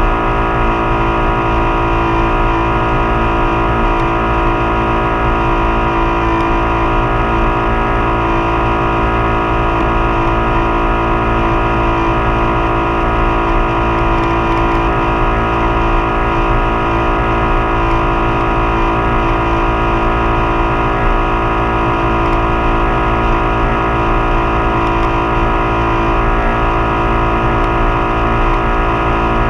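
Motorboat engine running at a constant cruising speed while towing a kneeboarder, a steady unchanging drone, with wind rumbling on the microphone.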